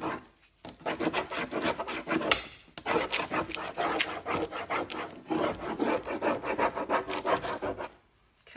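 A stick rubbing rapidly back and forth over the backing sheet of a rub-on decor transfer, burnishing it onto a painted surface. The scraping comes in three runs of about two seconds each, with short pauses between them.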